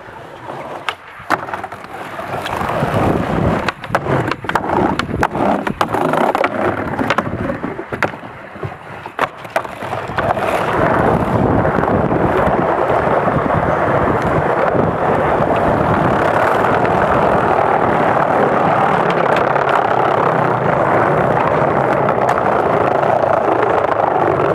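Skateboard wheels rolling over pavement, broken by sharp clacks and knocks of the board for the first ten seconds or so, then a steady rolling noise.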